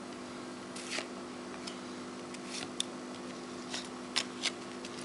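Upper Deck trading cards handled in the hands, one slid from the front of the stack to the back: a few soft, short card flicks and rustles over a steady low hum.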